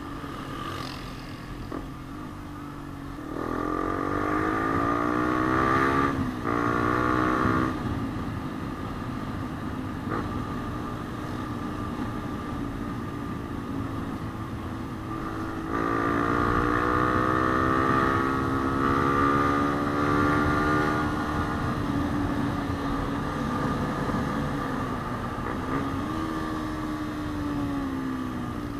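Yamaha Sniper 150's single-cylinder four-stroke engine revving up under acceleration, its pitch climbing a few seconds in and dropping sharply at gear changes, then running steadier before winding up again midway and easing off toward the end.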